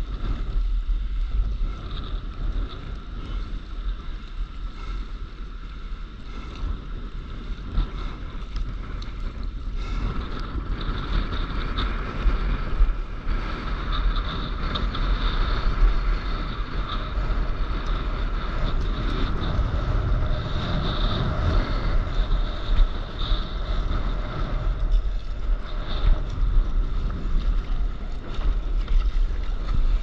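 Wind buffeting the microphone in a steady low rumble, over water splashing and rushing past a stand-up paddleboard.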